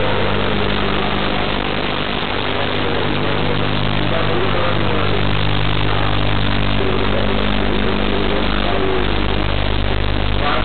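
Steady hiss with a constant low electrical hum, the background noise of a CCTV camera's audio.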